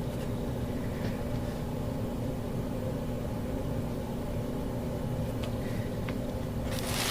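Steady low background hum with a few faint handling clicks, then wrapping paper starts to crinkle loudly near the end as it is unwrapped.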